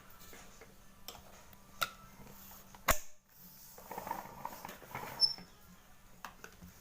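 Scattered clicks and light knocks of plastic vacuum-cleaner parts being handled during assembly, with two sharper clicks about three and five seconds in, over a faint steady hum.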